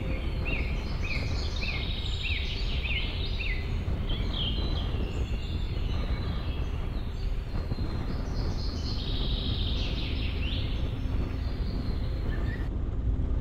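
Car driving up a hill road: a steady low rumble of engine and road noise. Over it, a bird calls, a string of quick falling chirps in the first few seconds, with more calls later, around ten seconds in.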